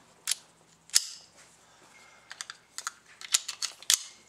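Metallic clicks and clacks of a small semi-auto pistol being handled: one sharp clack about a second in, then a quick run of light clicks in the second half.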